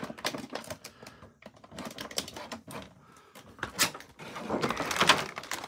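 Plastic packaging clicking and crackling as an action figure is worked out of its taped-in tray, with scattered sharp clicks that turn into a denser, louder crinkling near the end.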